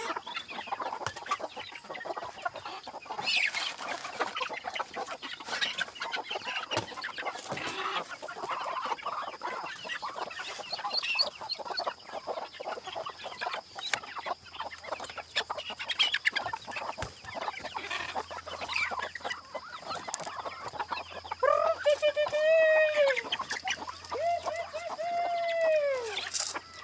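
Chickens clucking amid scattered small clicks and rustling. Near the end come two long rising-and-falling calls of about two seconds each, typical of a rooster crowing.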